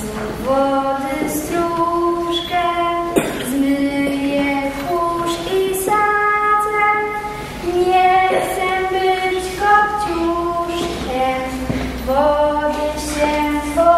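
A female voice singing a slow song solo, a melody of long held notes sung in phrases.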